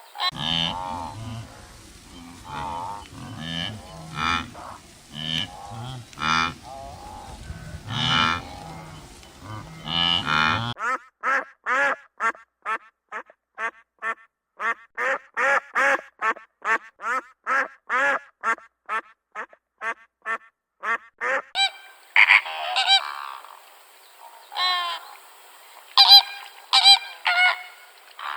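Animal calls, likely birds: a series of harsh, repeated pitched calls. About eleven seconds in, a cut brings a faster, even run of short calls, about three a second, for some ten seconds, then slower calls again.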